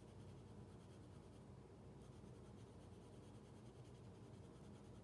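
Faint scratching of a brown colored pencil on sketchbook paper, drawn in quick short strokes with a brief pause partway through.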